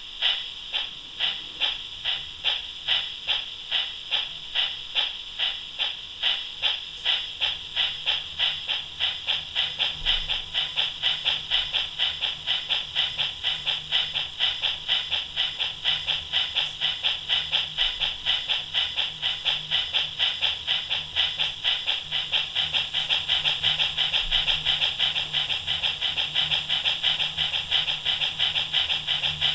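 Recorded steam-locomotive chuffs played by an ESU LokSound 3.5 sound decoder through a small capsule speaker in a Regner 'Kathi' garden-railway steam loco model. The chuffs start at about two a second, quicken over the first ten seconds or so, then keep a steady faster beat, over a faint low hum.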